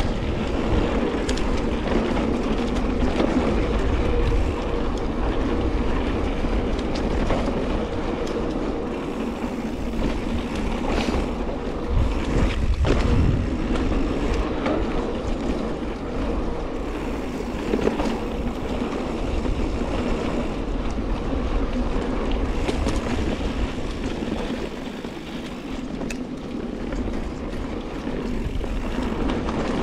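Mountain bike ridden along a dirt trail: steady rolling noise from the tyres and rattle of the bike, with a few sharp knocks over bumps.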